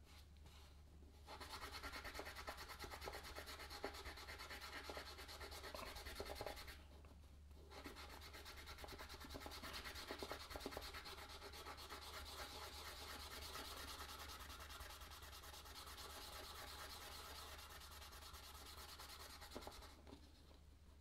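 Faint rubbing of a small pad back and forth on a cardboard trading card, scrubbing pack-wax residue off its surface. It starts about a second in, breaks off briefly about seven seconds in, then carries on until it stops about a second before the end.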